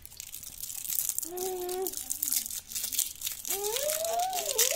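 Foil lollipop wrapper crinkling and tearing as it is peeled off by hand, with a child's voice sounding briefly twice.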